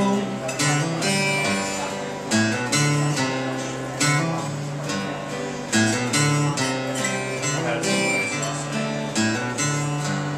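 Acoustic guitar strummed steadily in an instrumental passage after the sung line, with chords and bass notes changing every second or so and no singing.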